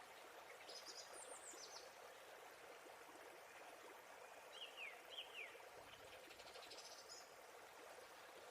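Steady, faint rush of a waterfall with small birds chirping over it: a few high chirps about a second in, two quick falling chirps a little past the middle, and a short high trill soon after.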